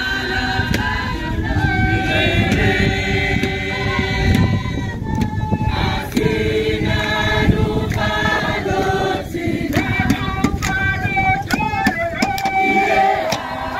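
A crowd of protest marchers singing together in several voices, without instruments, over a steady low rumble.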